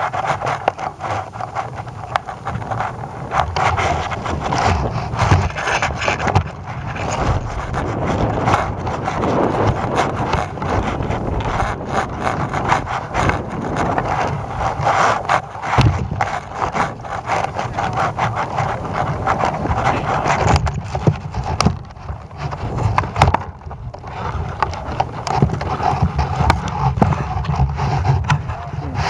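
Irregular knocking, scraping and rattling with no break, from a camera payload swinging and twisting on a balloon tether line.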